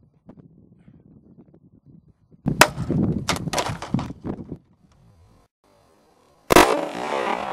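.22 Long Rifle shots from a High Standard HD Military semi-automatic pistol: a quick string of several shots about two and a half seconds in, then a single shot near the end.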